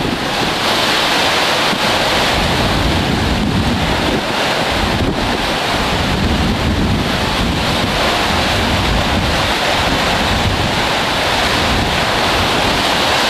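Hurricane-force wind blowing steadily and loudly, rushing through the trees and buffeting the camera microphone with an uneven low rumble.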